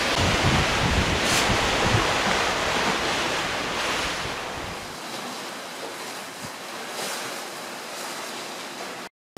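Wind buffeting the microphone over a steady rush of sea water from a moving ship. The low wind rumble drops away about halfway, leaving a quieter hiss, and the sound cuts out abruptly for a moment near the end.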